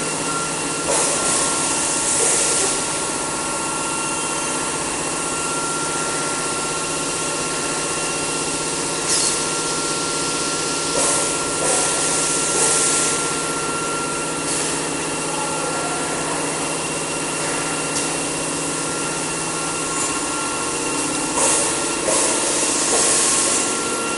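Automatic aerosol can filling line running: a steady machine hum with a high whine, broken every one to few seconds by short hisses of compressed air from the pneumatic filling heads.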